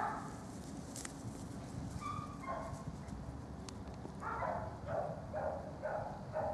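A dog barking repeatedly, about two barks a second, starting about four seconds in, over steady outdoor background noise.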